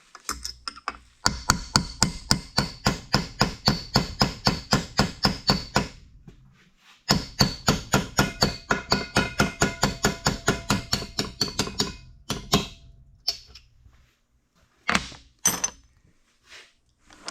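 Rapid hammer blows on metal, driving a pin out of a shaft in an Oliver 64 grain drill transmission: two long runs of about four to five ringing strikes a second with a short pause between them, then a few single blows near the end.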